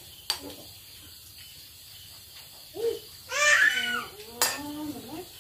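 A young child's high-pitched voice, babbling or squealing for about a second around three seconds in, after a shorter call. Two sharp clicks of spoons on dishes, one near the start and one near the end, over a steady chirring of insects.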